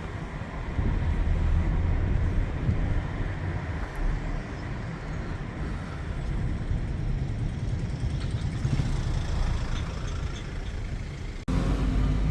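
Car on the move: a steady low rumble of engine and road noise, with a brief sudden dropout near the end.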